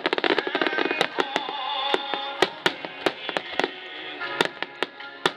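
Starmine fireworks bursting in a rapid, irregular barrage of sharp pops and crackles, several a second, over music playing.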